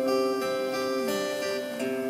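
Acoustic guitar picking held notes in a song's instrumental intro, with one note sliding down about a second in.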